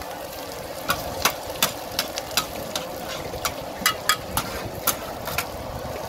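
Metal spatulas clinking and scraping against a large flat iron frying pan as eggs are chopped and turned, in irregular sharp taps, about a dozen of them, over a steady background hiss.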